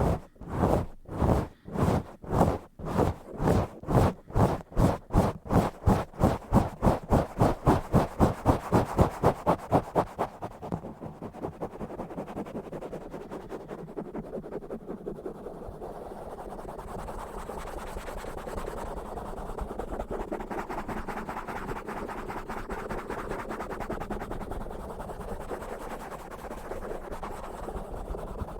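Scratching and rubbing directly on a bare microphone: even back-and-forth strokes at first, quickening, then about ten seconds in they run together into continuous fast rubbing.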